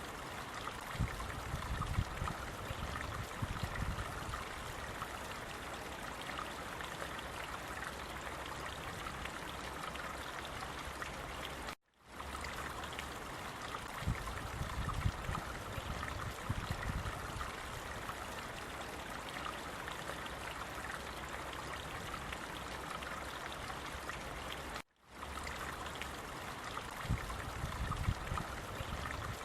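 Running water of a stream, a steady rushing flow with low gurgles now and then. It is a short recording looped about every thirteen seconds, dropping out for an instant at each seam, twice.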